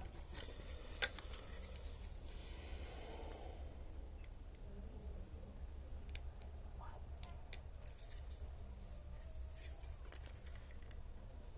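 Scattered light clicks and taps of small hand tools on a phone circuit board while an IC is being fitted, over a low steady hum; two sharper clicks stand out, about a second in and about seven seconds in.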